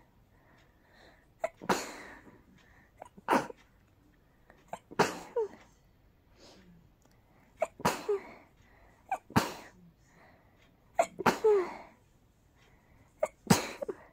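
A person sneezing in a rapid series, about seven sneezes, each set off by a short sharp catch of breath just before it.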